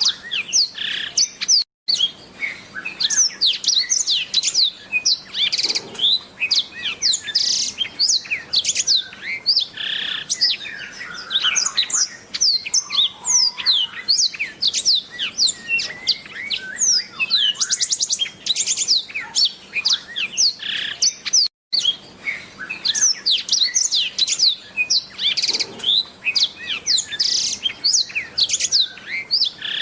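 Blackthroat (yellow-rumped seedeater) singing a fast, unbroken run of high, sweeping chirps and trills. The song cuts out completely twice for a moment, once near the start and once about two-thirds through.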